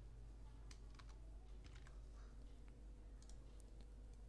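Faint, irregular computer keyboard and mouse clicks over a low steady electrical hum.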